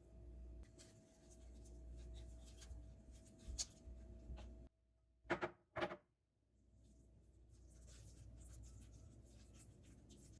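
Faint kitchen handling sounds: light clicks, taps and rustling over a low hum. About halfway through, the sound drops out completely and two short, sharp sounds come about half a second apart.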